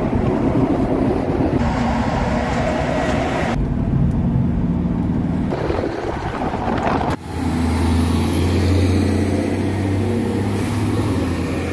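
Heavy trucks running alongside on an expressway, heard from a moving vehicle: engine and tyre road noise. The sound changes abruptly twice, about a third and about two-thirds of the way through, as one clip cuts to the next.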